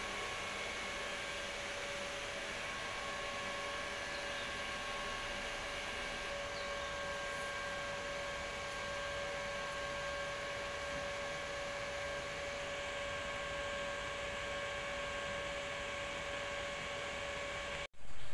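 Small electric blower motor running steadily: a constant whine over an even rush of air, cutting off abruptly near the end.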